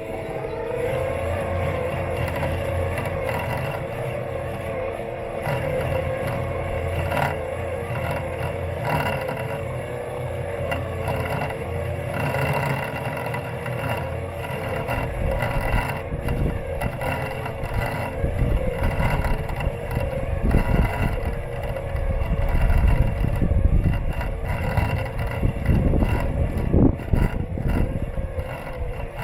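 Robot lawn mower's electric motors whining steadily, heard from a camera taped to its body, with the pitch dipping and settling about half a second in. A low rumble and frequent knocks from the mower jolting over the ground grow louder in the second half.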